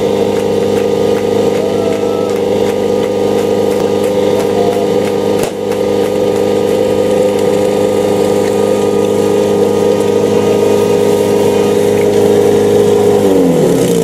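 Portable fire pump's petrol engine running hard at a steady high speed. Near the end its pitch falls sharply as the pump takes up water and starts delivering it.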